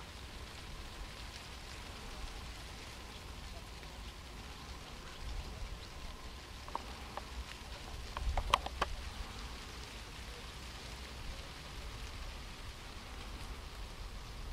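Outdoor ambience by open water: a steady hiss over an uneven low rumble. About seven to nine seconds in comes a short cluster of sharp clicks and brief high chirps.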